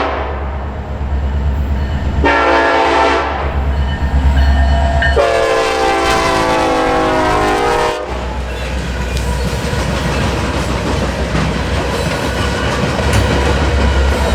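Norfolk Southern EMD SD70ACE diesel locomotive sounding its horn: a short blast about two seconds in, then a longer blast of about three seconds whose pitch falls near its end, over the low rumble of the engine. After that the coil steel train's cars roll past with steady wheel rumble and clatter on the rails.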